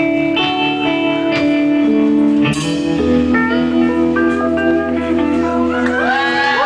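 Live rock band with guitars, bass and drums playing the closing bars of a song: a cymbal crash about two and a half seconds in, then a held final chord.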